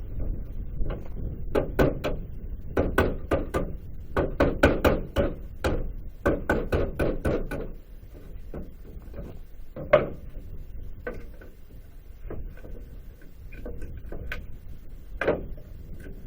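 Hammer blows on hardwood pallet boards while knocking them apart to free the nails: quick runs of strikes through the first half, then scattered single knocks, with one sharp loud crack about ten seconds in.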